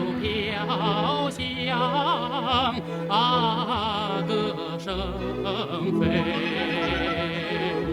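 Music: a singer's high, wavering operatic-style voice with strong vibrato over a sustained accompaniment, the sung phrases breaking off and resuming several times.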